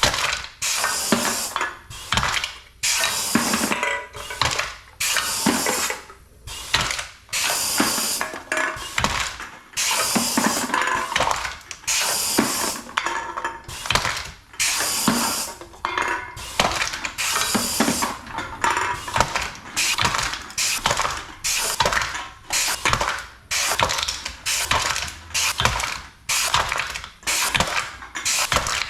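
Kanbol K-PC335B pneumatic can crusher crushing aluminium cans one after another, about one a second: each stroke is a crunch and clank of the can, with a hiss of compressed air.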